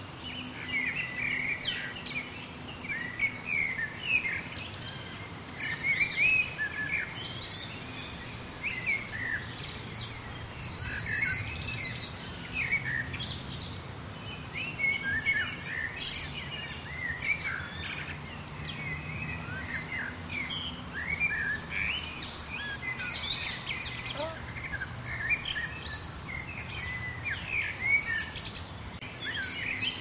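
A chorus of small songbirds chirping, many short quick calls overlapping, with a buzzy trilled phrase about a third of the way in and again about two-thirds in. A faint steady low hum runs underneath.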